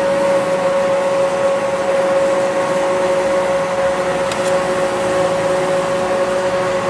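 A steady mechanical hum with one constant tone and a hiss over it, from a motor or fan running without change.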